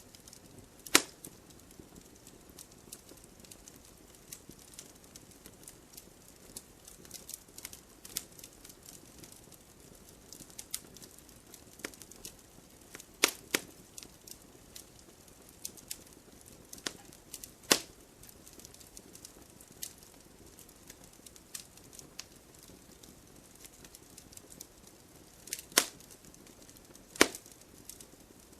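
Campfire crackling: wood burning with a constant scatter of small ticks and snaps over a faint hiss, broken by several louder sharp pops.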